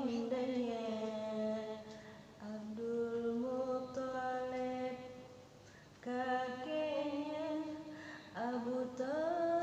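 A young child singing long held notes without clear words, sliding from one pitch to the next, with a short pause a little past the middle.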